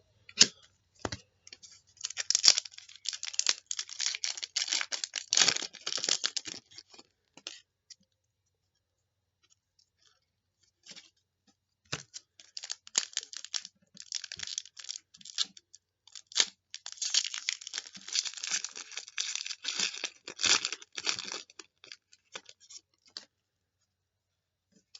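Trading card pack wrappers being torn open and crinkled by hand, in two long bouts of crackly rustling with a quiet pause of a few seconds between them.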